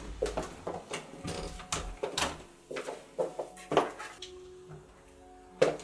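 Front door's lock and fittings being worked by hand: a run of irregular, sharp metallic clicks and clinks, several ringing briefly, with a short pause about four seconds in.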